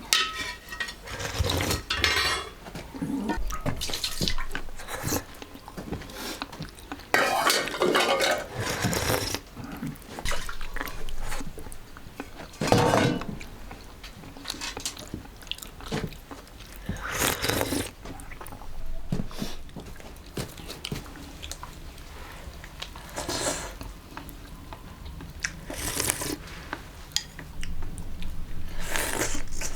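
Dishes, pots and utensils clattering and scraping in a kitchen, in irregular bursts with pauses between them.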